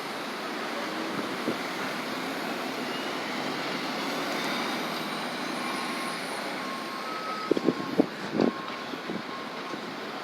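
Bus engine running steadily, with faint short repeated beeps from about halfway in and a few sharp knocks near the end.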